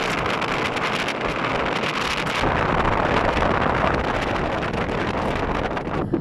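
Wind rushing over the microphone and road noise from a car driving at speed, a steady, dense rushing sound.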